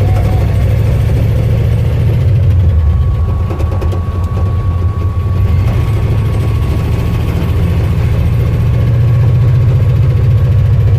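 1974 Ford F250 pickup being driven, heard from inside the cab: a steady, low engine and road drone.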